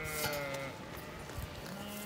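Zwartbles sheep bleating: one long wavering bleat at the start, then another begins near the end.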